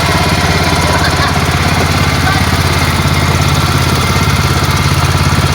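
Boat engine running steadily, with a fast, even pulse.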